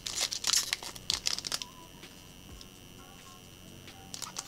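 Foil wrapper of a Magic: The Gathering booster pack crinkling and tearing as it is opened and handled by hand. The crinkling comes in a dense run over the first second and a half and again near the end. Between the two runs there is only a faint steady high-pitched whine.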